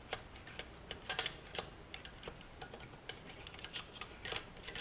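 Light, irregular metallic clicks and taps of a thin metal pick probing inside the open crankcase of a Briggs & Stratton single-cylinder engine, fishing for fragments of a broken camshaft compression release.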